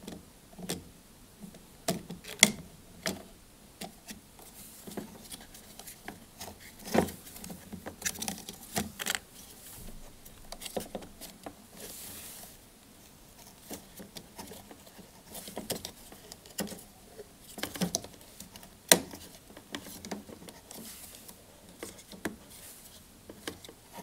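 Irregular clicks and knocks of hard plastic being handled as a replacement tumble-dryer drain pump is pushed and clipped into its plastic pump housing, with a sharper click about seven seconds in and again near nineteen seconds.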